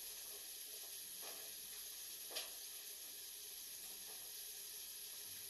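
Steady hiss of background noise, with two faint knocks, about a second apart, a little after the first second.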